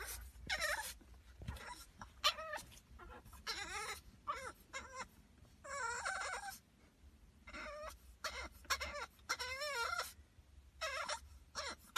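French bulldog puppy whining and yowling in a long string of short, wavering high-pitched cries, with brief pauses between them, over the low rumble of a car cabin.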